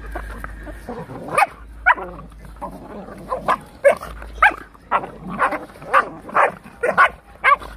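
A yellow Labrador puppy and a Rottweiler play-fighting, with a run of short barks that come about two a second from roughly three seconds in.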